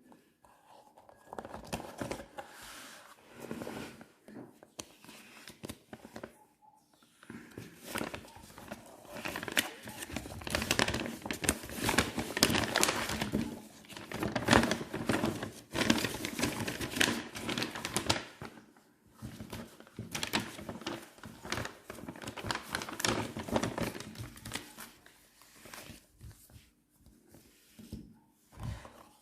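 Packaging being handled during an unboxing: plastic and paper crinkling and rustling in irregular bursts, busiest and loudest through the middle of the stretch.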